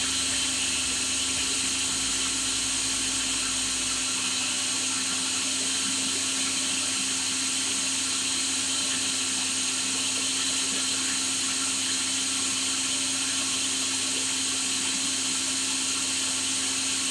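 Countertop jug blender running steadily, its motor puréeing papaya leaves in warm water into a green juice.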